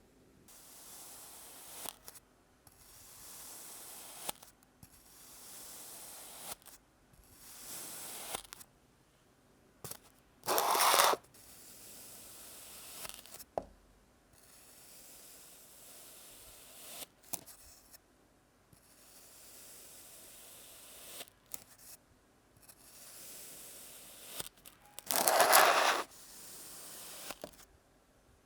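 Kinetic sand being cut: a slow series of soft, hissing scrapes as a blade slides through the packed sand, each lasting a second or two. Two much louder slices come about a third of the way in and near the end.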